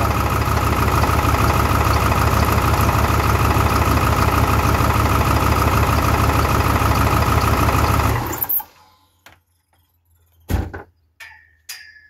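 A 2002 Ford 7.3 Powerstroke V8 turbodiesel idles loudly and steadily, running rough on one bank because a failed No. 8 injector has shut that whole bank down. About eight seconds in, the engine cuts off suddenly. It is followed by a few sharp clicks and one knock.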